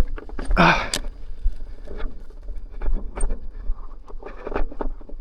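Irregular clicks, knocks and scrapes of an electric unicycle crawling slowly over rocks, its wheel and pedals striking the rock, with a low wind rumble on the microphone.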